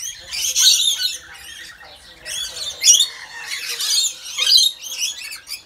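A flock of rainbow lorikeets screeching and chattering while feeding, harsh high-pitched calls overlapping in one burst after another.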